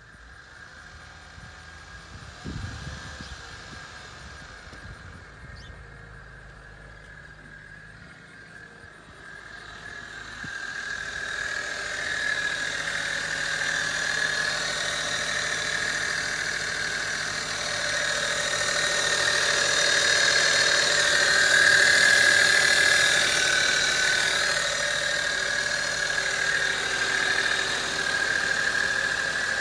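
2008 Acura TL's 3.2-litre V6 running with a steady high-pitched whine from the left side of the engine, louder from about ten seconds in. The whine persists despite a new alternator, serpentine belt and power-steering o-rings, and its cause is unknown.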